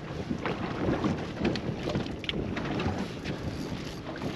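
Wind buffeting the microphone with a low rumble, broken by scattered knocks and clatter of handling aboard a small boat.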